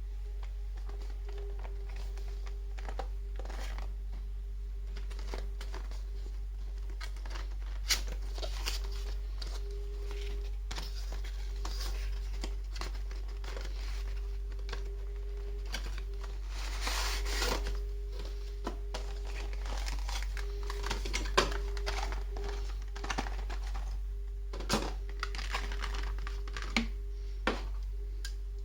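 A model's box and plastic packaging being opened and handled: crinkling, tearing and scattered small clicks and knocks, over a steady low hum.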